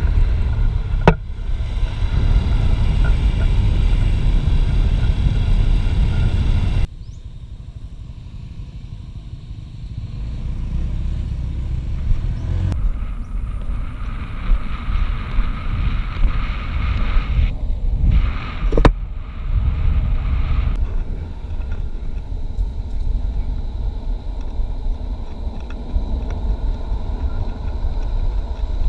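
Longboard urethane wheels rolling fast on asphalt: a steady low rumble mixed with rushing wind, broken by two sharp knocks, one about a second in and one near the middle. The sound drops abruptly and changes character at a few hard cuts.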